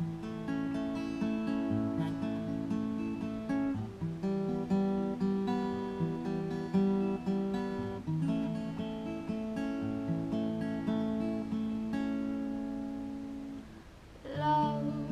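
Solo acoustic guitar playing a slow chord progression, the notes ringing on. Near the end the guitar drops away briefly and a singing voice comes in.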